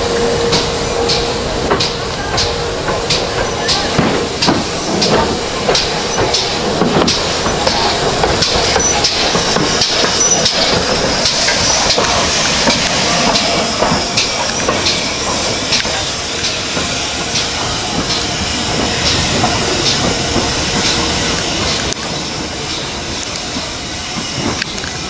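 GWR 4575 class small prairie tank locomotive 5542 working slowly, with regular exhaust beats about two a second and the hiss of escaping steam, which swells about halfway through.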